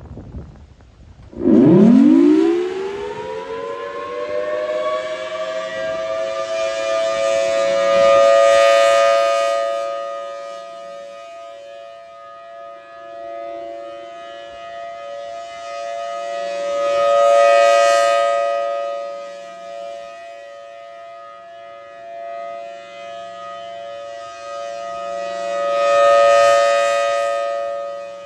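Federal Signal Thunderbolt 1000T outdoor warning siren starting up and sounding a short alert. Its two-tone wail rises steeply in pitch about a second and a half in, then holds steady. The sound swells and fades about every nine seconds as the rotating horn sweeps past.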